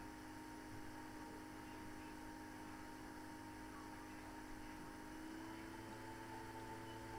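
Faint steady electrical hum with several held tones over a background hiss; another tone joins about five seconds in. No speech.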